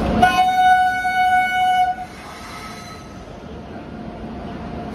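Indian Railways electric locomotive sounding its horn on arrival: one steady blast of about two seconds that cuts off, followed by the low, slowly building rumble of the train rolling in along the platform.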